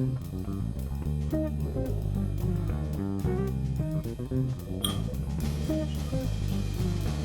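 Background music led by guitar and bass guitar, with a steady beat. A brief high, bright ping sounds about five seconds in.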